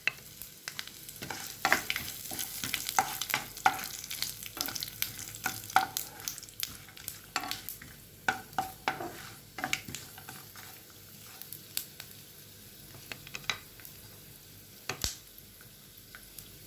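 Peanuts, curry leaves, mustard seeds and garlic frying in hot oil in a nonstick pan, stirred with a spatula: a steady sizzle with many sharp pops and clicks. The clicks come thick and fast for about ten seconds, then thin out.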